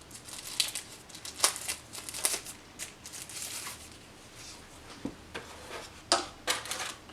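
Packaging crinkling and rustling as kit items are handled and unpacked by hand, with a few sharp clicks and taps.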